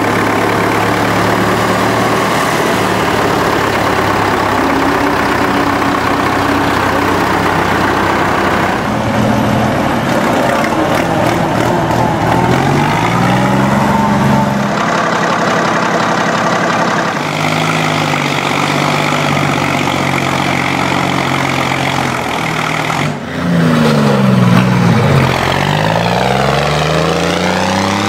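Vintage tractor engines running loudly. A steady engine note in the first part gives way to engines revving up and down, the pitch rising and falling several times, most strongly near the end.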